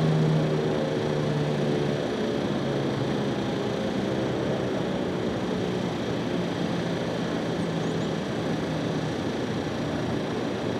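Federal Signal 508 outdoor warning siren sounding a steady low alert tone, loud at first and fading after about two seconds into a fainter, broken tone under a steady background hiss.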